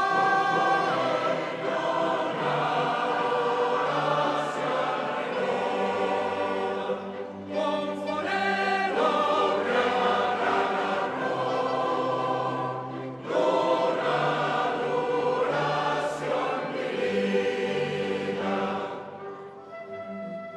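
Large mixed choir singing with a string orchestra accompanying, in phrases with short breaks between them; the sound thins out near the end.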